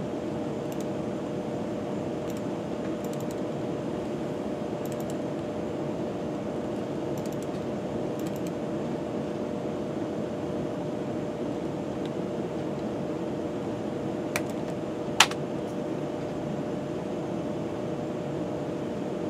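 Light computer mouse button clicks over a steady fan-like hum with a faint steady tone in it. The clicks come every second or so in the first half, and two sharper clicks land about fourteen and fifteen seconds in.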